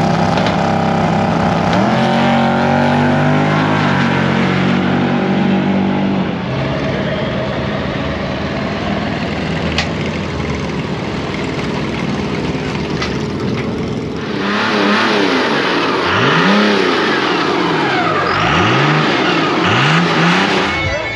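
Drag car's big-block Chevy V8 launching at full throttle, its pitch climbing in steps through the gears. Then mixed engine noise, and later a large turbocharged truck engine revved hard about five times, its pitch sweeping up and falling back each time.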